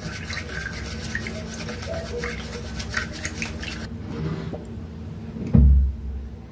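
Wooden chopsticks stirring a sauce in a ceramic bowl: a quick, busy run of rubbing and light clinks against the bowl that stops about four seconds in. Near the end, one heavy low thump.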